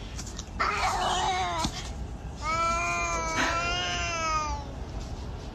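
Cats yowling in a fight: a short, rough yowl about half a second in, then a long, steadier yowl from about two and a half seconds until near the end.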